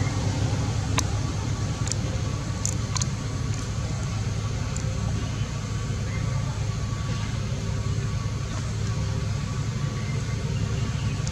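Steady low rumble of outdoor background noise, with a few sharp clicks in the first three seconds.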